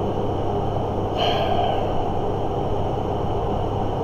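Steady low hum and hiss of background noise, with one faint short noise about a second in.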